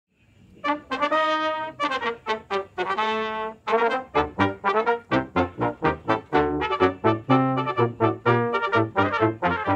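Brass quintet of two trumpets, French horn, trombone and tuba playing a Spanish march. It starts with two long held chords, then from about four seconds in breaks into quick, short, detached notes over a strong bass line.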